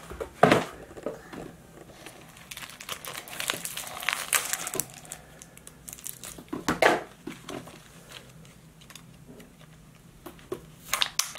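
Thin plastic toy packaging crinkling and tearing as small pieces are unwrapped by hand, in several short spells, the loudest about half a second in and near seven seconds, with quieter rustling between.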